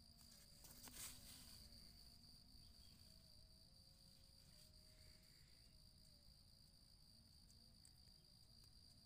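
Near silence with a faint, steady, high-pitched insect trill in the background, and a brief click about a second in.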